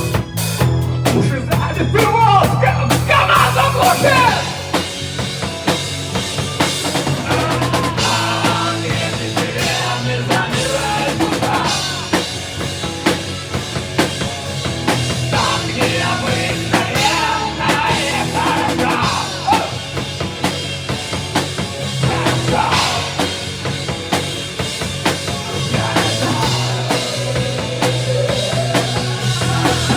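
A band playing live, with a drum kit's bass drum and snare driving the beat under steady low bass notes and a melody line that bends and wavers in pitch.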